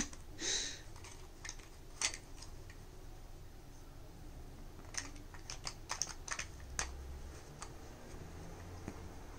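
A plastic puzzle feeder clicking and tapping as a pet noses at its sliding covers and compartments. The light clicks come scattered, with a quick run of them past the middle.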